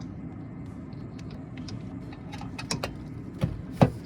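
A few sharp metallic clinks and knocks of a socket and torque wrench being handled and fitted onto a brake caliper bolt, with the loudest clink near the end, over a steady low hum.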